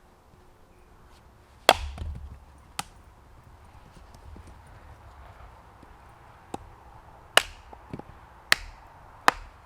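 Hultafors Hunter's Axe chopping into wood on a stump, splitting it: a loud sharp strike about two seconds in, then three more in quick succession near the end, with a couple of lighter knocks between.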